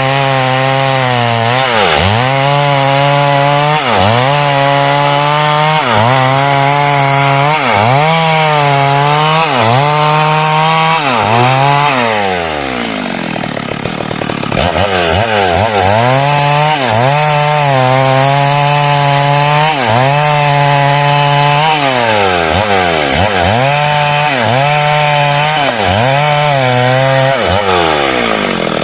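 Two-stroke chainsaw cutting through hardwood heartwood, engine at high revs with its pitch dipping and recovering about once a second as the chain bites under load. About halfway it drops to idle for a couple of seconds, then revs back up and cuts again, easing off near the end.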